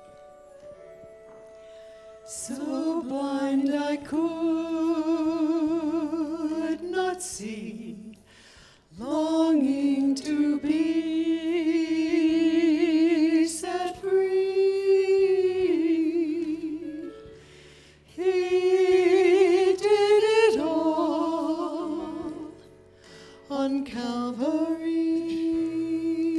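Three women singing a Christian song over a soft instrumental accompaniment. The voices come in about two seconds in, with long held notes that waver in vibrato and short breaks between phrases.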